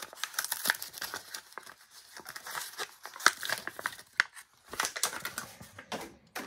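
Plastic blister and cardboard backing of a Hot Wheels car package being torn open by hand: irregular crinkling and crackling with several sharp snaps as the blister is pulled away from the card.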